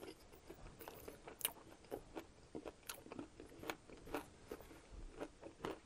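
Close-up chewing of a mouthful of fried chicken with breading, bacon and cheese: a soft, irregular run of small crunches and mouth clicks, several a second.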